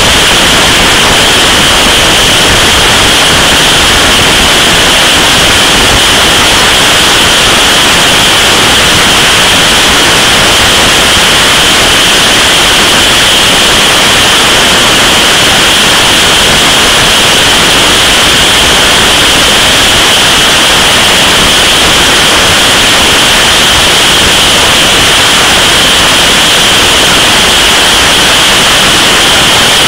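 Loud, steady wind noise rushing over the camera microphone on a motorcycle at motorway speed, without a break.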